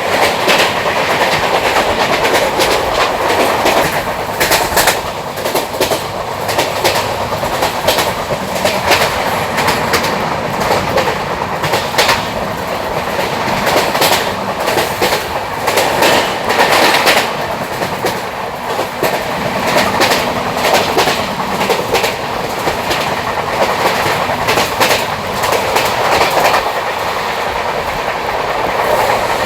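Train running along the track: a steady rolling rumble with irregular sharp clicks and clacks as the wheels pass over rail joints.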